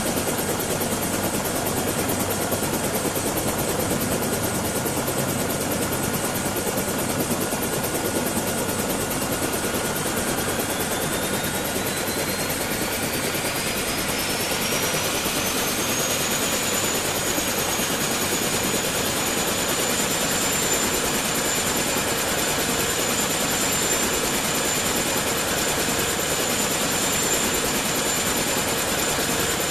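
Helicopter hovering: steady rotor and turbine noise. A thin high whine climbs in pitch about a third of the way in, then holds steady.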